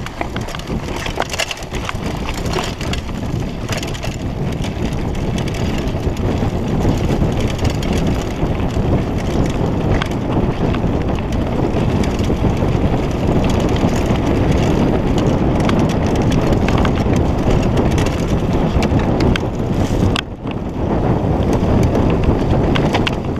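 Mountain bike riding down a rough dirt singletrack. The tyres crunch over dirt and stones, the bike rattles, and wind buffets the microphone. The noise drops off briefly about three seconds before the end.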